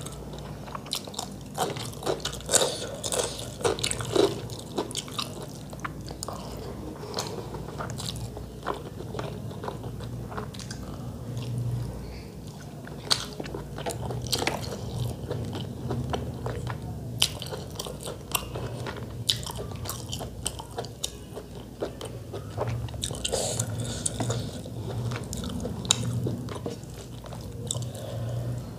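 Close-up chewing and wet mouth sounds of someone eating rice and chicken curry by hand, with frequent small clicks and smacks, mixed with fingers squishing and pressing curried rice on a metal plate.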